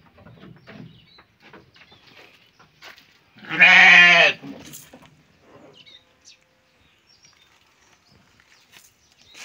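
A goat in a wooden pen bleats once, a single loud call about a second long, roughly three and a half seconds in. Faint knocks and rustles come before and after it.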